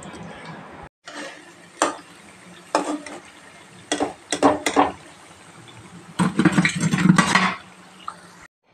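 Steel slotted spoon and spatula clinking and scraping against a steel kadai and plate in a series of sharp clatters, with a denser run of clatter about two-thirds of the way through, as fried vadai are lifted out of the oil and served.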